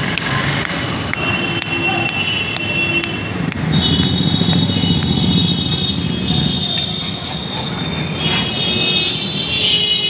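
Train wheels squealing on the rails: a high, steady metal squeal that shifts up in pitch and grows louder a little over a third of the way in, over a constant low rumble of rail and street traffic.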